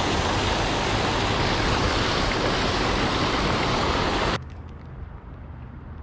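Steady rush of water pouring over a low concrete weir. It cuts off suddenly about four seconds in, leaving only a faint low rumble.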